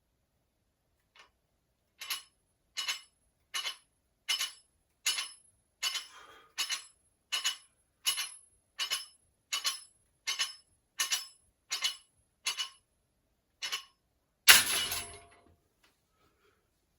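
Metal gym weights clinking together about once every three-quarters of a second, each clink ringing at the same pitch, with one much louder clang about 14.5 seconds in.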